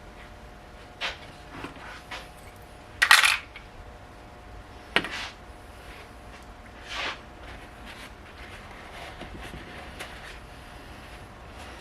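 Scattered metallic clinks and knocks of tools and car parts being handled, the loudest a short clatter about three seconds in and a sharp clink about two seconds later, over a faint steady hum.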